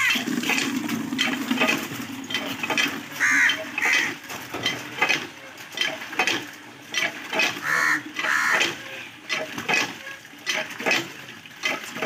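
Butcher's knife cutting and scraping flesh off a skinned cow's head, a run of irregular short scrapes and clicks. Crows caw several times in the background.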